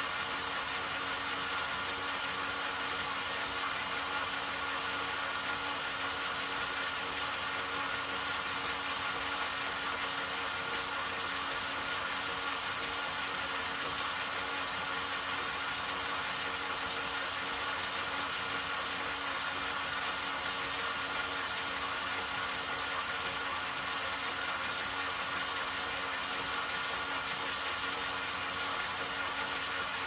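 Motor of an enMotion automatic touchless paper towel dispenser running continuously: a steady mechanical whir with a few constant tones and no change in speed.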